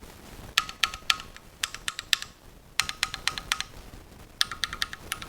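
Typing on a Keychron Q1 aluminium mechanical keyboard with Gateron Phantom switches: quick runs of crisp keystroke clicks in four short bursts with brief pauses between them.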